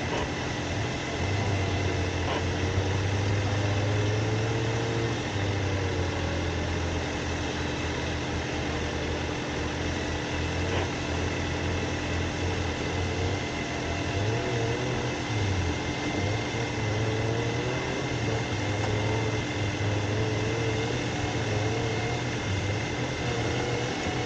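An off-road 4x4's engine running steadily, its low hum swelling and easing a little at times, with a steady high whine over it.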